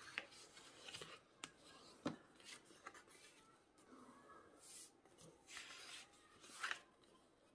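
Faint paper handling: a scored paper strip being folded and creased along its score lines, with scattered soft clicks and brief rustling swishes, the loudest near the end.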